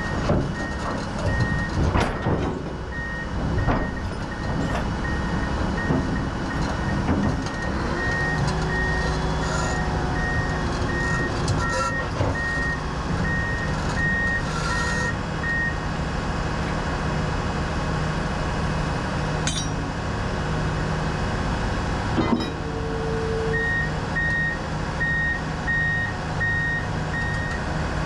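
Heavy-equipment backup alarm beeping in a steady, evenly spaced series, about one and a half beeps a second, starting and stopping in stretches, over a diesel engine running steadily.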